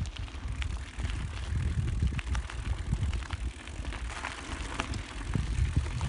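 Handcycle rolling along a mountain-bike trail: a continuous low rumble with many small, irregular clicks and rattles from the ride over the trail surface.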